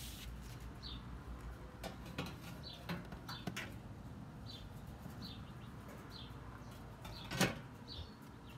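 Light knocks and clinks of a glass baking dish being set down inside a solar oven's metal box, with one sharp knock near the end. A bird chirps over and over in the background, a short falling chirp repeated every second or less.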